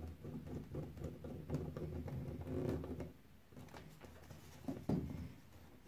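Light handling noise of electrical wiring work: small clicks and rustles as wires are fitted into screw terminal blocks, thinning out about halfway through, with one sharper click near the end.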